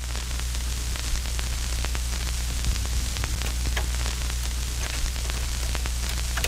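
Static noise: a steady hiss over a low electrical hum, with scattered crackles and clicks throughout.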